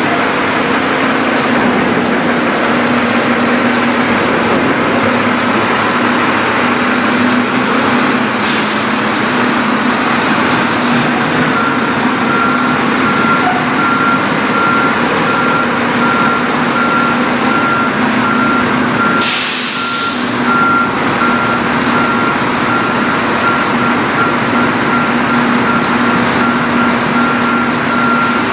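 Garbage truck engine running steadily. From about a third of the way in a backup alarm beeps over and over, and about two-thirds in an air brake lets out a short hiss.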